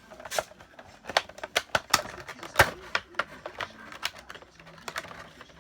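Irregular clicking and crinkling of a cardboard box and plastic packaging being handled as a Funko Pop vinyl figure is unboxed, with one sharp snap about halfway through.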